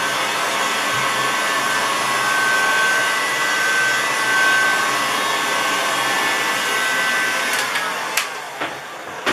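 Electric heat gun blowing steadily, a rushing airflow with a high motor whine, used to warm dried contact adhesive on PVC tarpaulin. Near the end it is switched off: the whine drops in pitch and dies away, followed by a click.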